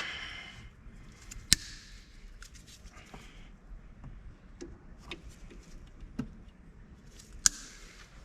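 Scattered metallic clicks and knocks of hand tools and parts being handled during brake assembly work, with two sharp clanks about six seconds apart.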